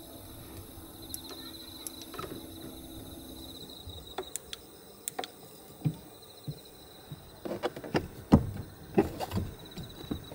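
Scattered light clicks and knocks of hands handling fittings and gear inside a small van: a lantern hung on a hook and the overhead storage panel. The knocks come thicker and louder in the last few seconds. A faint, steady cricket chirping runs behind them.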